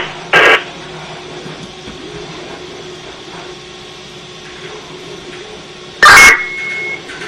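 Fire department two-way radio between transmissions: a short burst of squelch noise just after the last call ends, then a faint steady hiss with a low hum. About six seconds in, a loud burst of static as a radio keys up, followed by a steady high beep lasting about a second.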